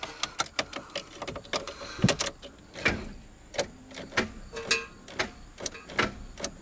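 Irregular sharp clicks and knocks, about one to two a second, with a brief squeak a little under five seconds in; no engine is running.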